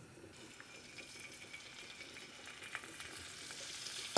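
Cubes of raw beef going into hot oil in a deep frying pan, sizzling faintly. The sizzle grows louder as more pieces go in, with a light tap near the end.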